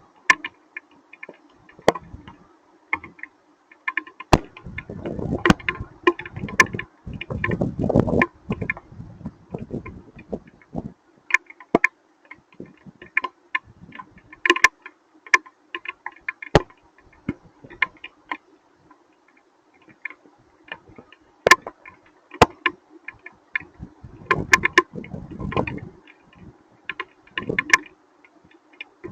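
Hailstones striking a hard surface in irregular sharp ticks, with two spells of low rumbling noise, a few seconds in and near the end.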